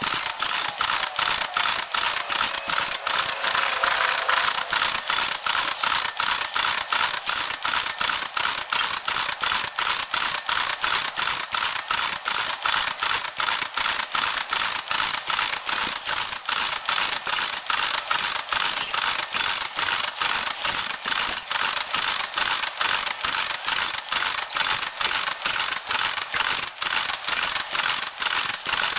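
Wheels of loaded crude-oil tank cars clattering over a rail diamond crossing: a steady, rapid run of sharp clicks, several a second.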